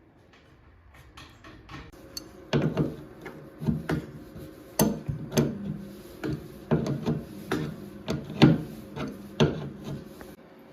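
Irregular knocks and clunks of tools and fittings being handled while a faucet is swapped out. After a quiet first two seconds or so, there are about a dozen sharp knocks with a little ring after each.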